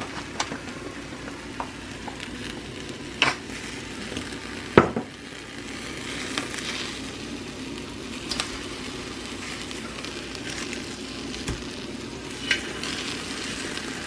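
Tomatoes, jalapeños and onion sizzling steadily as they roast on foil on a stovetop, the charring stage for a chile sauce. A few sharp clicks and knocks come as the vegetables are handled, the loudest about five seconds in.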